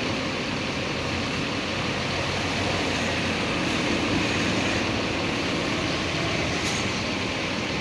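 Bus engine running steadily, an even low drone.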